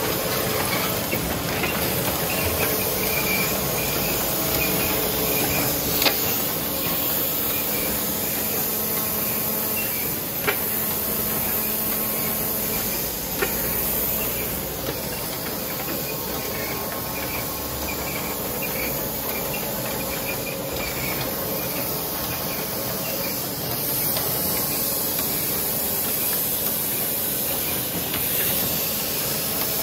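Sulby perfect binding machine with a 15-clamp carousel running: a steady mechanical hum with a hiss, broken by a few sharp clicks in the first half.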